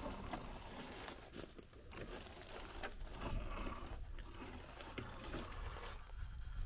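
A 1/10-scale RC rock crawler climbing over boulders: its tyres scrabble and crunch on rock and dry leaves, with scattered small crackles and clicks over a low steady rumble.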